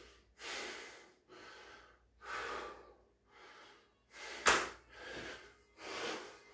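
A man breathing hard between reps of pump burpees, audible breaths roughly once a second, winded from the exercise. About four and a half seconds in there is one sharp, loud burst, the loudest moment.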